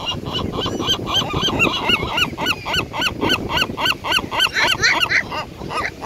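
Gulls calling in a fast, unbroken series of short yelping notes, about four to five a second, with a second bird's calls overlapping near the end, as they squabble over food.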